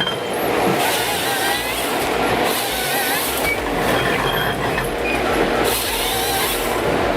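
Heavy machinery running and working, with short high squeals and two stretches of harsher hiss.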